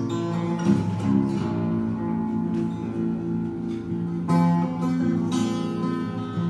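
Instrumental music with guitar, plucked notes over sustained chords, between sung verses of a song.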